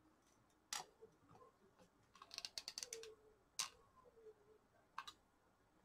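Faint, scattered clicks and taps of small craft pieces being handled, with a quick run of little clicks about two to three seconds in.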